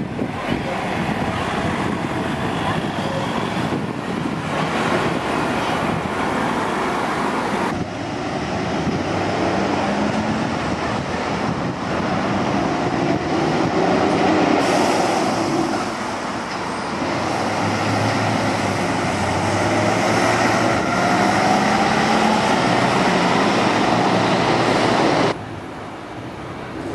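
Town-centre road traffic with buses passing and pulling away, the engine noise changing abruptly at several cuts. A slowly rising whine comes in the middle as a vehicle accelerates, and near the end the sound drops to a quieter bus-station background.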